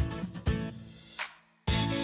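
Background music with a steady beat that fades out about a second and a half in, then starts again with bell-like notes.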